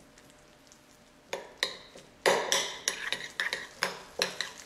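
Metal spoon stirring and scraping a thick mashed egg-yolk and mayonnaise filling in a bowl, with irregular clinks and scrapes against the bowl starting about a second in.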